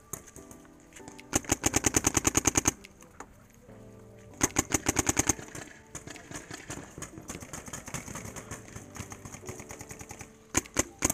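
Paintball marker firing rapid strings of shots, about ten a second: a long string of a dozen or so, a shorter string of about eight, and two or three quick shots near the end.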